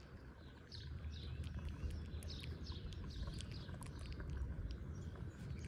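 Small birds chirping in the background, a quick series of short high notes sliding downward, over a steady low rumble.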